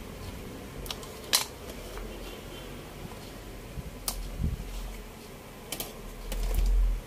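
Sharp clicks and taps of a TV main circuit board and hand tools being handled and turned over on a workbench, the loudest a little over a second in. A low dull rumble near the end.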